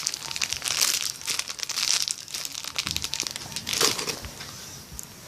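Crinkly wrapping being handled and squeezed, crackling in irregular bursts that die down near the end.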